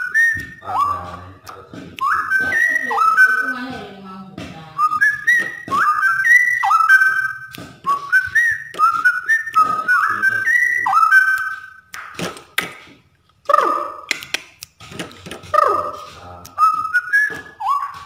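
Straw-headed bulbul (cucak rowo) singing its rapid 'ropel' song: a fast run of loud, short whistled notes, many sliding upward. After about twelve seconds the notes come more sparsely, with sharp downward-sliding calls.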